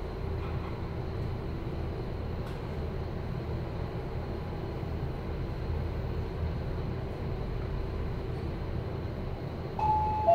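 Passenger elevator car travelling upward, a steady low hum and rumble of the ride with a faint steady tone in it. Near the end a two-note falling chime sounds as the car arrives at the floor.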